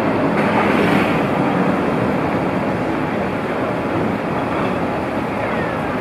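Steady street traffic noise, with the underfloor diesel engine of a 1961 Leyland Tiger Cub bus running as it drives slowly along the road.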